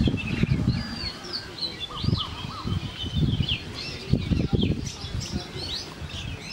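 Laqqa fantail pigeons cooing in several low, pulsed bursts, over the steady high chirping of small birds.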